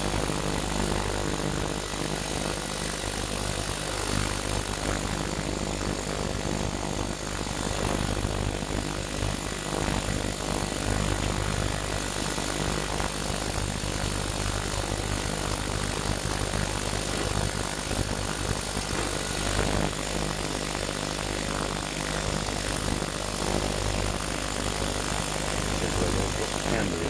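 Sonic Wave 6.5-litre ultrasonic cleaner running a cleaning cycle on brass Meccano gears in its solution: a steady hum with an even hiss over it.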